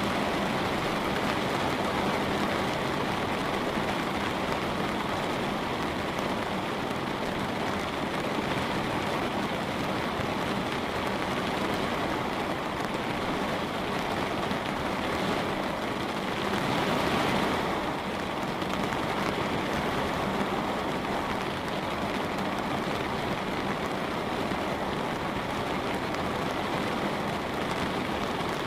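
Light rain falling on a window pane, a steady, even hiss of drops that swells briefly about two-thirds of the way through.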